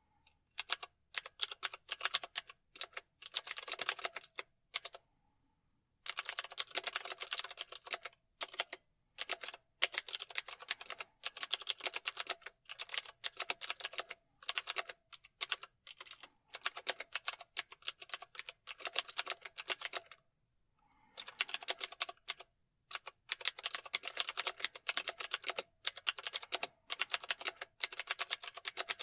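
Typing on a computer keyboard: fast runs of key clicks in bursts lasting a few seconds, with short pauses between, the longest about five seconds in and again about twenty seconds in.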